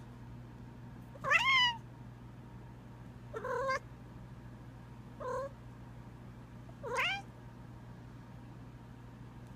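A house cat making short, quail-like chirping calls, four in all, each under half a second and a second or two apart, most of them rising in pitch.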